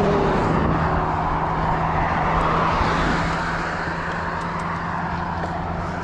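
A pickup truck drives past on the road, its engine and tyre noise slowly fading away.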